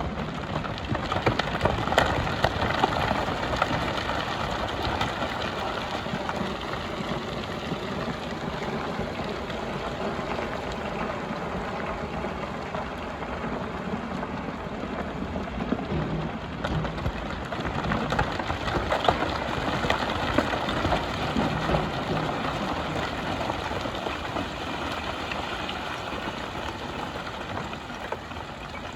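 Hyundai HX300 excavator at work gathering aggregate: its diesel engine runs under load while gravel and stone rattle and scrape in and off the bucket, with busy clattering that is loudest near the start and again about two-thirds of the way through.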